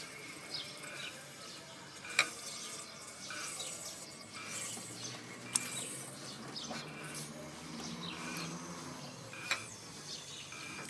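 Three sharp clicks or taps, spread several seconds apart, over a faint background of birds chirping.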